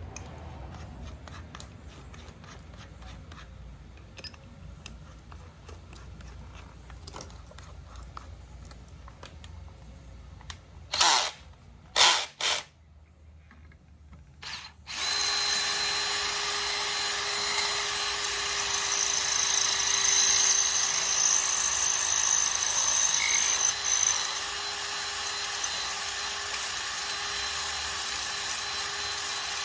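Electric drill boring out a hole in an aluminum water pump housing with a small bit. The drill is triggered in two short blips about eleven and twelve seconds in, then runs steadily from about halfway through.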